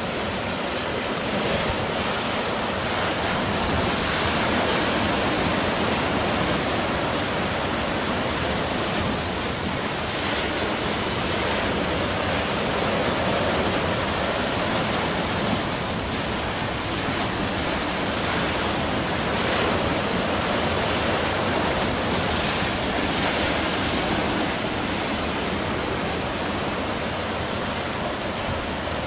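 Sea surf breaking and washing up the shore in a steady rushing wash that swells and eases gently every few seconds.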